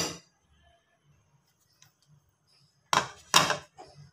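Kitchen utensils clattering: a short clink right at the start, then near quiet, then two short knocks about three seconds in.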